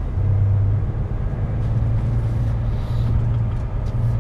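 HGV lorry's diesel engine running as the lorry drives, a steady low drone heard from inside the cab.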